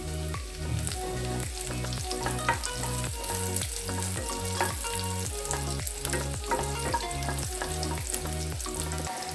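Chopped ginger, garlic and green chillies sizzling and crackling in hot ghee in a kadhai, stirred with a wooden spatula. A background music track with a repeating bass line runs underneath.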